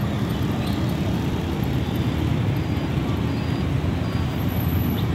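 Steady road traffic noise from cars and motorbikes on a busy street, a continuous low rumble.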